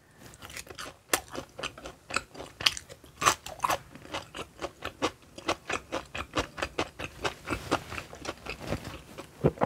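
Close-miked chewing of a fried, breaded cream cheese ball, with many small irregular crunches.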